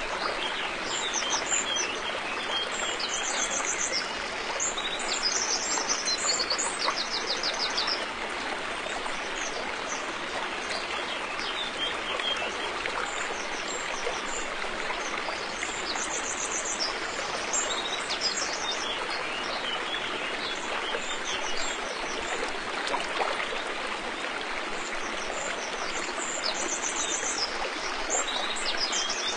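River water flowing steadily over stones, a constant rushing hiss. Small birds call over it with high-pitched rapid trills and chirps, in short clusters near the start, around the middle and near the end.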